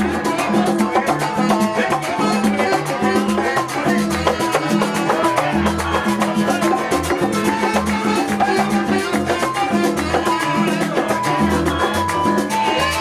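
Latin music in a salsa style, with steady percussion and a pulsing bass line.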